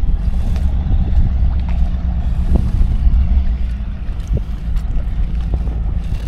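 Steady low engine rumble with a few light clicks and knocks.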